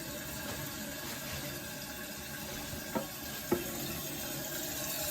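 Water running steadily into a toilet tank through its fill valve as the tank refills, with two short clicks about three seconds in.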